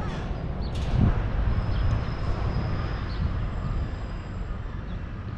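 Steady low outdoor rumble with a faint, steady high whine above it, and a soft thump about a second in.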